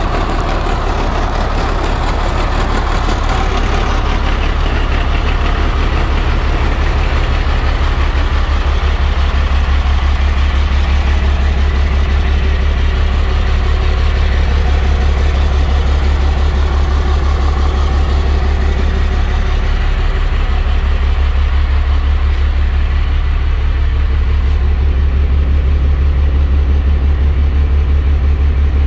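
Freightliner FL70 box truck's CAT C7 diesel engine idling steadily, growing louder from about a third of the way in as the microphone passes beneath the truck.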